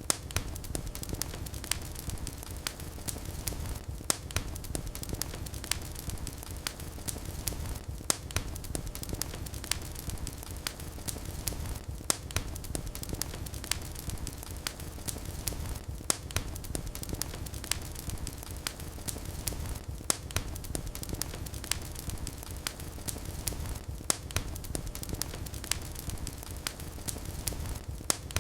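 Wood fire in a fireplace crackling steadily: many small snaps and sharper pops over a low, even rumble of flames, with a louder pop about every four seconds.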